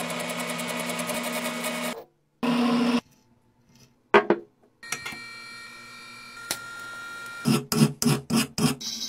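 A metal lathe running steadily as it turns a steel part, cut off after about two seconds. Then a sharp clatter of a metal part set down on a wooden bench, a faint steady hum with a thin high whine, and near the end about five quick strokes as a hand works a part clamped in a vise.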